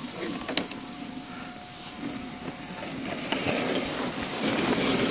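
Sled sliding and scraping over packed snow: a rough, gritty noise that grows louder toward the end, with a few clicks and knocks about half a second in.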